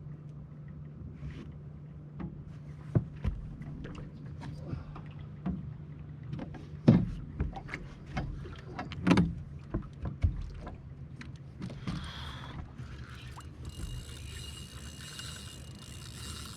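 Knocks and clatter of gear against a small fishing boat, over a steady low hum, while a fish is being played on the line. Near the end comes a hiss with a thin high tone.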